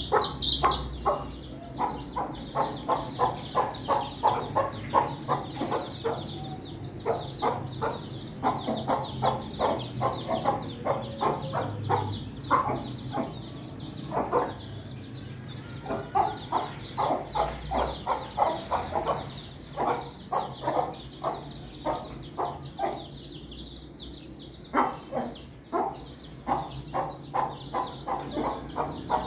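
Aseel hens clucking to their chicks in steady runs of about three to four clucks a second, with short pauses, while the chicks peep throughout in thin high notes.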